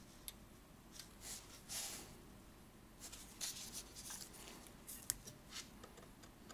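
Faint handling noise from working on a brass clock movement: a few irregular light clicks of metal and short scratchy rubs of gloved hands and a screwdriver while the pallet depth is adjusted.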